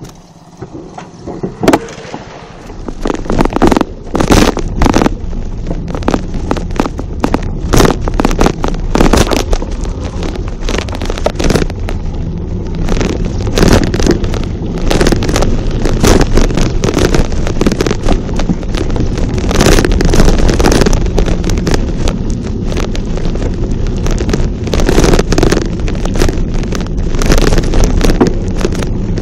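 Wind buffeting the microphone, with rattling knocks and scrapes from riding over a rough dirt track. It starts faint and turns loud about two seconds in.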